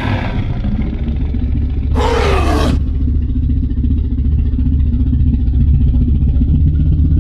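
Dinosaur roar sound effect: a low, rumbling growl throughout, with one short roar about two seconds in that falls in pitch.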